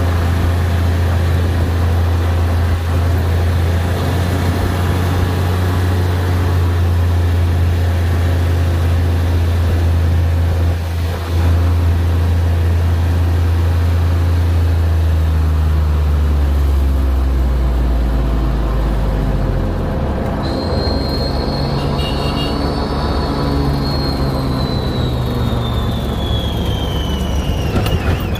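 Side-by-side utility vehicle's engine droning steadily, heard inside its cab with tyre and road noise. About two-thirds of the way through the engine note drops, and a thin high whine comes in and slowly falls in pitch.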